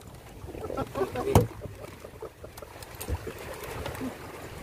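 Faint voices in the background, with a sharp knock about a second and a half in and a few lighter clicks and knocks later.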